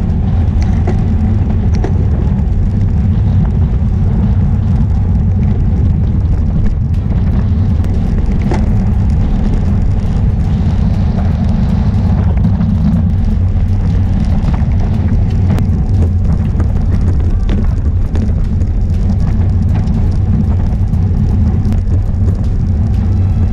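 Steady low rumble of wind buffeting the microphone of a bike-mounted camera, mixed with tyre and road noise from a road bike riding at race speed.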